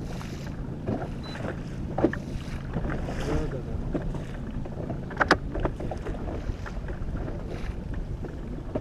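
Boat's outboard motor running steadily at low speed, a low even hum under wind and water noise, with two sharp knocks about two and five seconds in.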